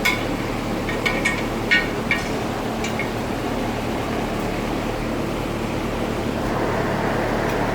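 A few sharp metallic clinks in the first three seconds as hook pliers work a balance weight off a car wheel rim, over a steady background hum.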